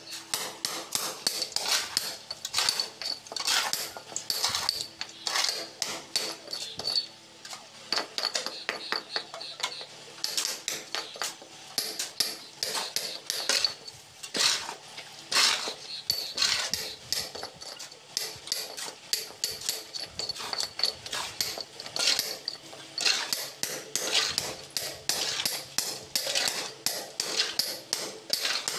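Hand hammer striking a steel chisel again and again, chipping concrete and brick out of the base of a wall. Quick metal-on-metal clinks, several a second, each with a bright ring, broken by a few short pauses.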